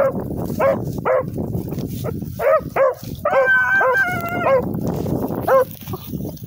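Rabbit hounds barking: a string of short yelping barks, then one longer drawn-out bawl about three and a half seconds in, then a few more barks.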